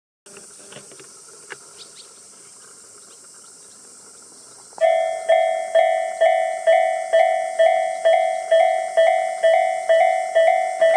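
Japanese railway level-crossing alarm on the Tobu Nikko Line starts about five seconds in, ringing its 'kan-kan' strikes about twice a second, each fading before the next: the warning that a train is approaching. Before it there is only faint background hiss with a few small clicks.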